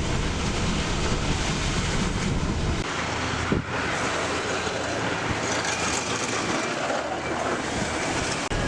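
Car driving on a snowy, slushy road, heard from inside the car: steady tyre and road noise. The low rumble drops away about three seconds in, and there is a single click just after.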